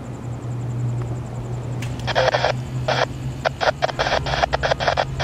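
Low steady drone of an approaching diesel locomotive, not yet in sight. From about two seconds in, irregular bursts of hissing noise come and go over it.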